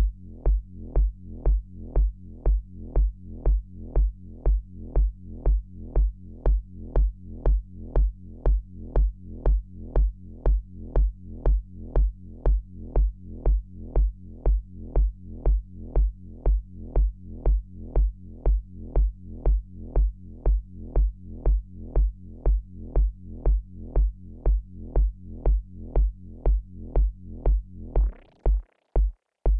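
Arturia Pigments software synthesizer playing a repeating electronic pulse about twice a second, each hit a deep kick-like thump with brighter overtones above it. Near the end the upper part drops away and only the low thump is left.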